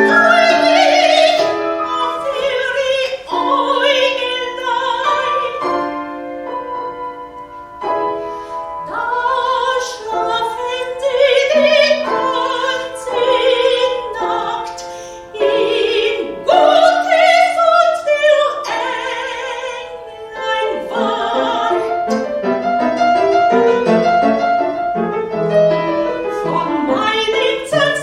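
Classical soprano singing with vibrato, accompanied by piano.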